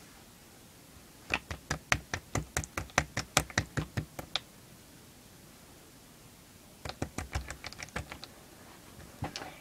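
Slime being squeezed and worked by hand, giving quick runs of sharp clicks, about five a second. The first run starts about a second in and lasts about three seconds; a shorter run follows near the end.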